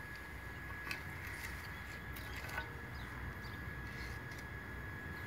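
Light scraping and two soft knocks as a trowel works stone-tile adhesive in a bucket, over steady low background noise and a faint steady high tone.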